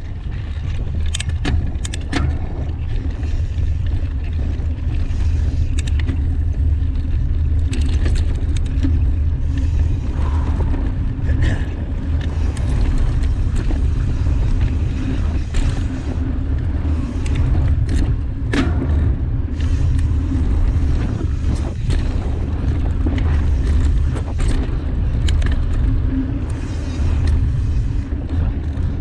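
Mountain bike riding a dirt flow trail: a steady low rumble of wind and tyres, broken by frequent short knocks and rattles from bumps.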